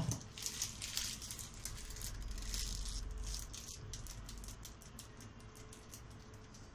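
A low thump as the cake board is shifted on the table, then faint, irregular crinkling and rustling of a plastic piping bag being squeezed to pipe icing.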